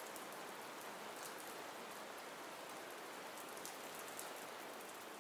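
Faint, steady rain-like hiss of outdoor ambience with a few light scattered ticks.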